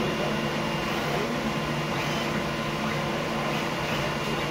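Steady blower drone with a low hum underneath, unchanging throughout.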